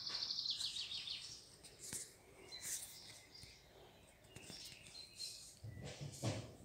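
A small bird chirping in a quick high trill for about a second, followed by a few short high calls. A brief low rustle comes near the end.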